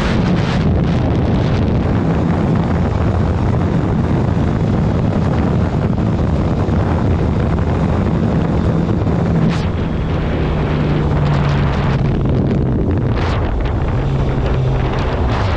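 Wind buffeting the microphone over a 2019 Suzuki GSX-R750's inline-four engine running at speed. The engine note drops step by step in the second half.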